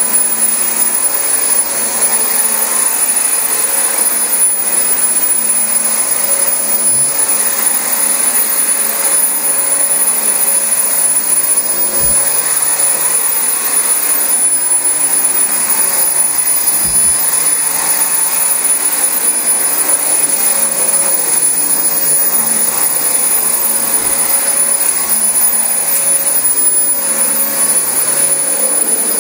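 Dyson DC25 upright vacuum cleaner running steadily on carpet: a constant rush of air with a high, steady motor whine over it.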